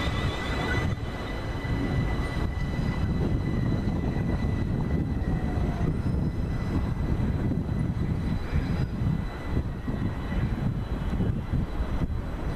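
London Overground Class 378 Capitalstar electric multiple unit rolling past: a steady low rumble of wheels on track with a few light knocks. A faint high electric whine from its traction equipment fades away about halfway through.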